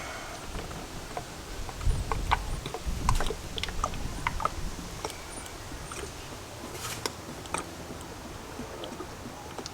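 Small clicks and taps of parts being handled, with two low thumps about two and three seconds in and a short hiss near seven seconds.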